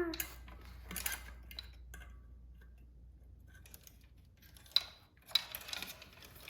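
Bicycle chain and rear-wheel parts clinking and rattling in scattered bursts as the chain is pulled onto the rear wheel, with a quiet pause of a few seconds in the middle.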